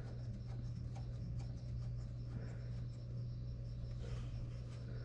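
Faint rubbing and light ticks of parts being handled under the hood, over a steady low hum.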